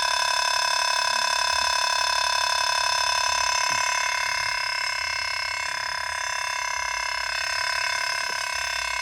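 Night insect chorus: a steady, shrill, fast-pulsing drone made of several high tones at once.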